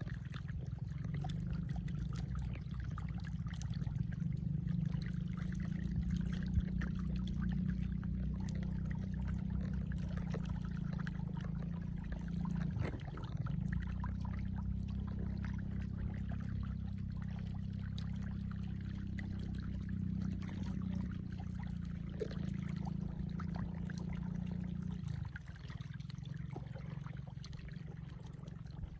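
Water running in a small field stream: a steady low rushing and trickling, easing slightly near the end.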